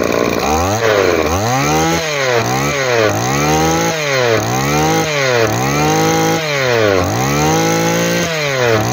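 Komatsu G26 26cc two-stroke brush-cutter engine revved by hand at the carburettor throttle again and again, its pitch climbing and falling back roughly once a second. It revs cleanly, which the seller takes for a healthy engine.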